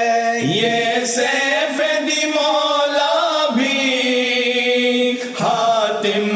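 Male reciters chanting an Urdu devotional ilteja (marsiya-style supplication) in unison, without instruments, holding long drawn-out notes that glide between pitches.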